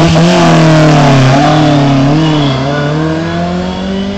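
Ford Escort Mexico rally car's engine revved hard at the start and held at high revs as the car pulls away, the note wavering up and down. The sound fades from about three seconds in as the car moves off up the road.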